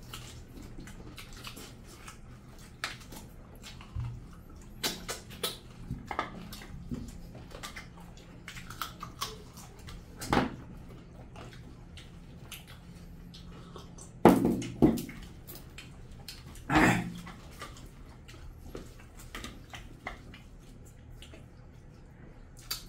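Close-miked eating of mutton curry and rice by hand: wet chewing, lip smacking and sucking at meat on the bone, in many short irregular smacks. A few louder slurps or sucks come about ten seconds in and again a little past the middle.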